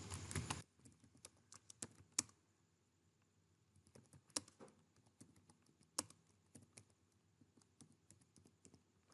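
Slow, uneven typing on a computer keyboard: faint separate key clicks, a few a second at irregular spacing, with an occasional louder keystroke. The typist is going haltingly, his fingers not placed properly on the keys.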